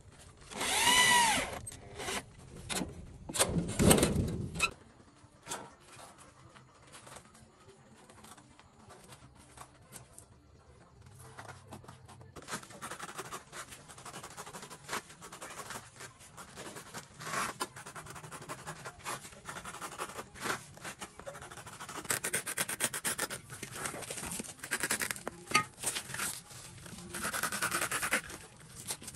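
A cordless drill driving screws into a metal slide-bolt latch, its motor whining up and down about a second in, with a second loud burst near four seconds. After that, a blade slicing through a 2.75-17 motorcycle tyre: a long stretch of scratchy rubbing and small clicks, louder toward the end.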